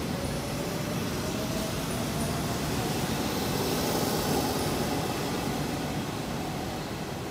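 Hanshin 8000-series electric train pulling away, its traction motors whining in one tone that rises slowly in pitch as it accelerates, over the rumble of its wheels on the rails. The sound swells about halfway through and then fades as the train draws off.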